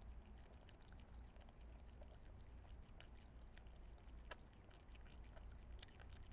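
Faint, irregular wet clicks and smacks of a Virginia opossum chewing close to the microphone, the sharpest a little past the middle, over a steady high hiss and low hum.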